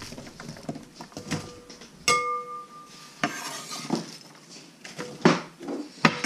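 Chopped onion being scooped off a wooden cutting board into a glass bowl: a string of soft knocks and clatters as pieces are swept and dropped. About two seconds in comes a clink with a short ringing tone from the glass bowl.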